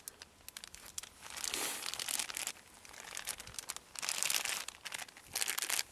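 Thin plastic bag crinkling in three loud bursts, with small crackles in between, as a hand rummages inside it.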